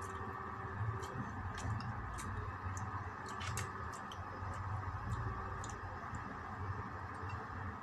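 Eating sounds of a flaky egg tart: scattered small clicks and crackles of pastry being picked apart, handled and chewed, with a quick cluster about three and a half seconds in, over a steady background hum.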